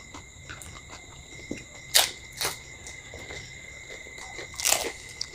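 Eating sounds: a few sharp crunches and clicks, the loudest about two seconds in and again near the end, over a faint steady high-pitched whine.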